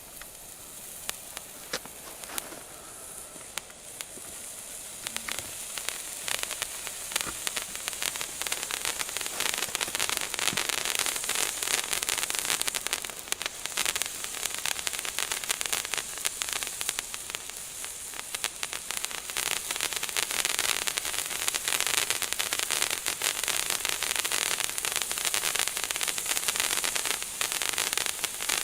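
Hand-held fountain firework burning: a continuous hiss full of dense crackling. It swells over the first several seconds and then holds steady.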